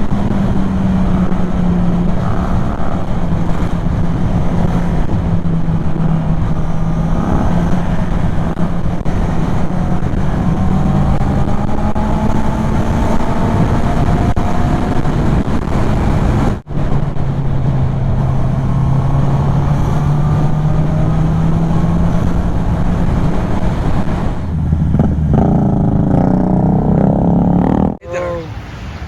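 Kymco Xciting 400 maxi-scooter engine running at a steady cruise under heavy wind and road rush, its pitch drifting slowly up and down. The sound breaks off abruptly for a moment about two-thirds of the way through.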